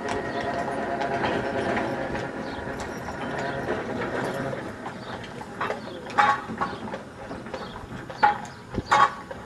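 Hooves of a pair of carriage horses clopping on tarmac, a few sharp, irregular knocks in the second half. Under them is a steady mechanical whine that fades away over the first few seconds.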